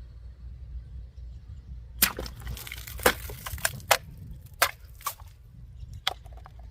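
Multitool knife blade cutting into a plastic bottle: the plastic crackles for about two seconds, then splits with a few separate sharp cracks.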